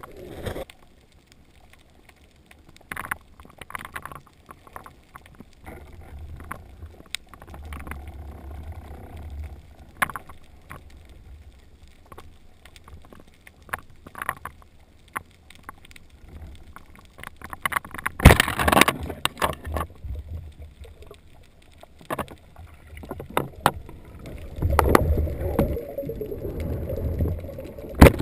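Muffled underwater sound from a submerged camera: water moving around the housing, with scattered clicks and knocks throughout. About eighteen seconds in there is a louder rush of water lasting about a second, and near the end a low rumble with more knocking.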